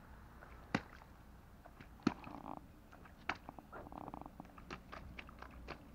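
Domestic cat coming right up to the camera and rubbing its fur against it: soft brushing and rustling close on the microphone, with scattered sharp clicks and taps.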